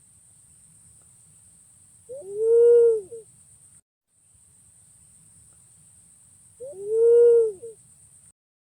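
Punai pink green pigeon giving two soft coos about four seconds apart. Each coo lasts about a second and rises then falls in pitch, over a faint steady hiss.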